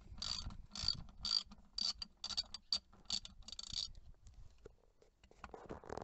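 Ratcheting driver with a T20 Torx bit clicking in short bursts, about two a second, as a Torx bolt on the back of the steering wheel is slowly undone; the clicking stops about four seconds in.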